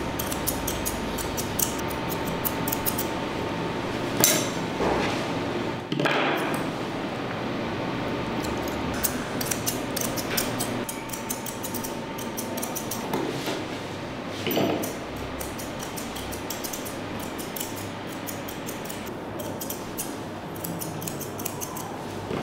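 Grooming shears snipping a Shih Tzu's long coat in quick runs of crisp metallic clicks, with a few louder knocks between the runs.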